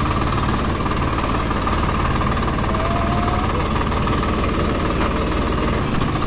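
Tractor's diesel engine running steadily with a fast, even knocking beat and a steady whine above it.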